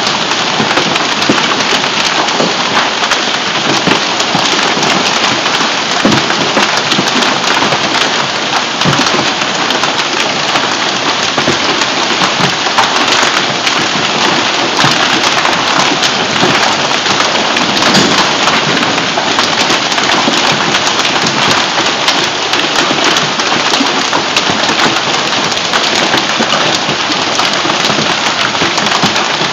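Hailstones and heavy rain pelting the lawn, roofs and trees in a severe hailstorm: a dense, steady downpour of countless small impacts.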